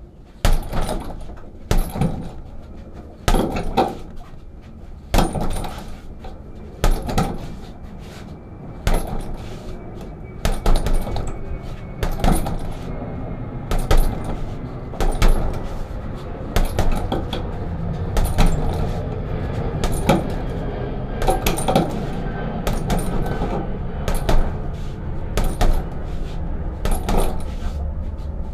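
Punches landing on a 45 kg heavy bag, often in quick pairs, every second or two, each hit with a metallic rattle.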